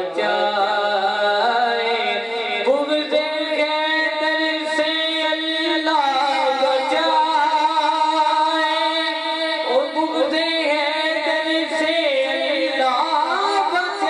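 A man singing Islamic devotional verse solo into a microphone. He holds long notes for several seconds at a time and slides and ornaments the pitch at the start of each new phrase.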